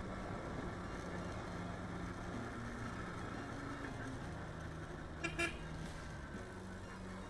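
Motorcycle engine running steadily while riding, with wind and road noise, its pitch stepping a little now and then. A vehicle horn gives two short beeps about five seconds in.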